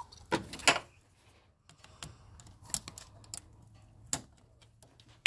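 Irregular small plastic clicks and taps as the stiff, never-before-removed wire connector on a xenon HID headlight bulb is pressed and pried at with a screwdriver tip.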